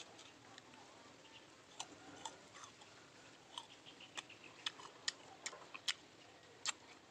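Crisp crunching of a firm red-fleshed guava being chewed: a string of sharp, irregular clicks, more frequent in the second half.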